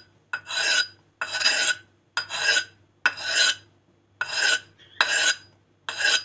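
Axe blade drawn in repeated strokes along a wet whetstone held in the hand, steel scraping on stone: seven strokes, about one a second, with short pauses between.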